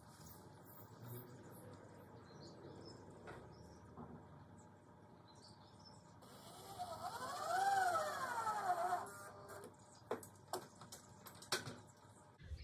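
Cordless drill running for about three seconds about six seconds in, its whine rising in pitch and falling again as it drives a screw into a timber beam, followed by a few light clicks and knocks.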